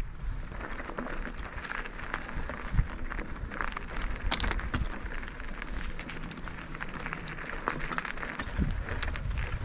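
Mountain bike rolling fast over a rough dirt and gravel track: tyres crunching, with a steady run of clicks and knocks from the bike rattling over stones, and a low rumble of wind on the microphone.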